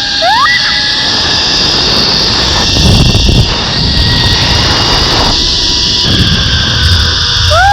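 Zipline trolley running fast along its steel cable: a steady rushing whir with wind on the microphone. A short whoop comes near the end.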